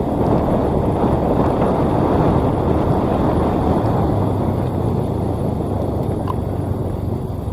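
Sakai asphalt paver's diesel engine running steadily as the machine travels along the road, with a low hum coming in about halfway through.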